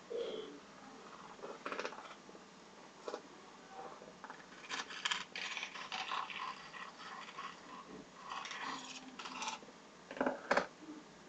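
Faint irregular clicks, scratches and rustles: small handling noises, busiest in the middle, with a couple of sharper knocks near the end.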